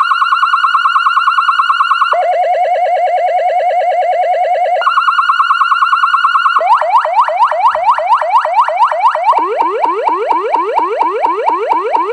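SA5200 electronic police siren running through its tones: a fast-warbling tone that steps between a high and a low pitch every couple of seconds, then about two-thirds in switching to a rapid series of rising chirps, about four a second.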